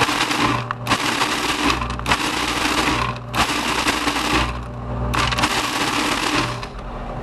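Electric food processor pulsed in about five bursts of a second or so, with short breaks between, grinding nuts and dried cherries.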